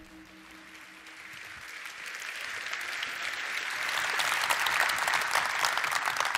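Audience applause, starting faint and swelling to full clapping over the first few seconds. The last of an intro music tone fades out near the start.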